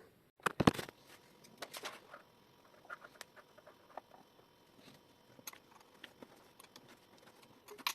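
Irregular light clicks and taps of hard plastic and metal as a CPU cooler's retention clips are worked onto the motherboard's mounting hooks, the loudest clicks about half a second in.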